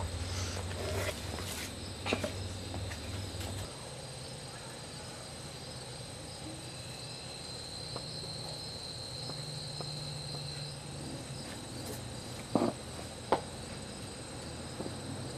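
Insects chirring steadily in an even, high drone, with a low rumble for the first few seconds and two sharp knocks a little under a second apart near the end.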